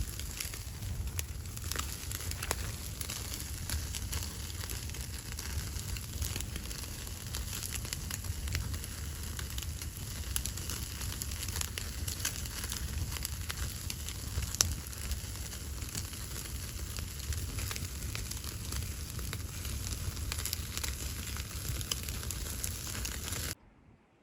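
Wood fire burning with steady crackling and frequent sharp pops over a low rumble; one louder pop comes about halfway through, and the sound cuts off suddenly near the end.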